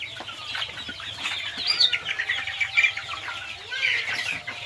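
A flock of about 300 young local (desi) chickens, some 40 days old, clucking and peeping together in a pen, with many short high calls overlapping.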